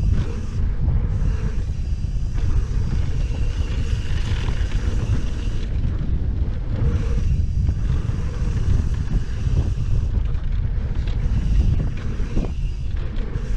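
Wind buffeting an action camera's microphone as a mountain bike rolls fast down a packed-dirt jump trail: a steady low rumble with hiss above, which thins out briefly a few times.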